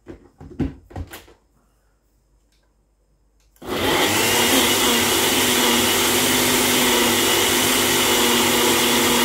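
A few sharp knocks as the cup of a personal bullet-style blender is set onto its motor base, then about three and a half seconds in the motor starts and runs steadily with a high whine, pureeing chopped red onions.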